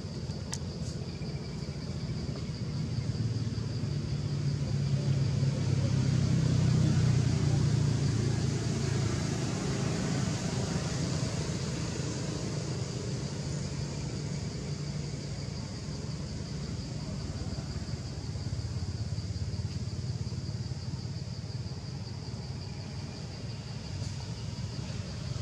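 Low outdoor rumble that swells to its loudest about seven seconds in and then eases back, over a steady high-pitched insect drone.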